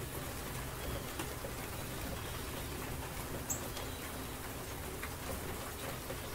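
Steady background noise with a low hum, scattered faint ticks and one short high chirp about three and a half seconds in.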